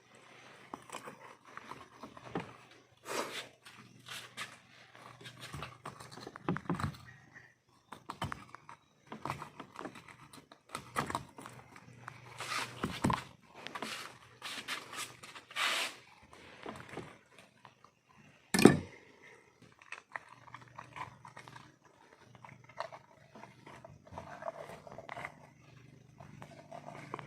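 Knife scraping and chopping through a fish while it is cleaned and cut up: irregular scrapes and knocks, with one sharp chop about two-thirds of the way in.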